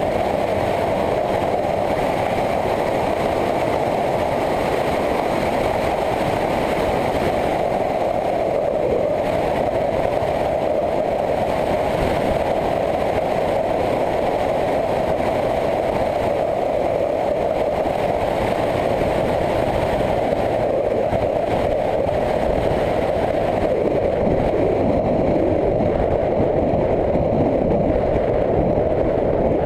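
Motorcycle riding at a steady speed: the engine running under steady wind and road noise on the onboard microphone.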